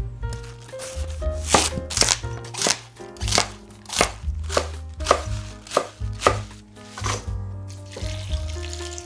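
Chef's knife slicing through a head of Chinese leaf (napa cabbage) onto a wooden chopping board: about a dozen crisp cuts, roughly two a second. Near the end, water starts pouring over the sliced leaves in a steel bowl.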